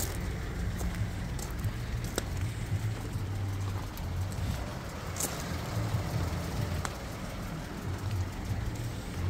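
Peugeot 208's 1.2-litre three-cylinder petrol engine idling steadily, heard from outside the car, with a few short clicks.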